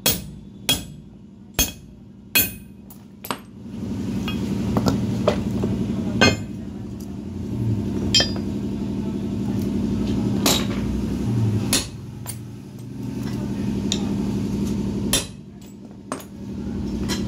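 A hammer striking a drift to drive a new bronze bush into a connecting rod's small end: about five sharp metal blows a little under a second apart in the first few seconds. After that a steady machine hum takes over, with a few single clinks of metal, and it drops away briefly near the end.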